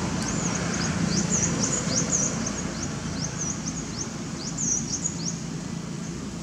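Birds chirping: many short, high-pitched notes in quick runs, over a steady low background hum.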